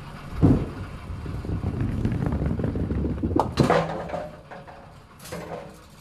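Bowling ball landing on the lane with a heavy thud about half a second in, then rolling with a low rumble. It strikes a single pin with a sharp clatter about three and a half seconds in, and the ringing dies away, with a smaller clatter near the end.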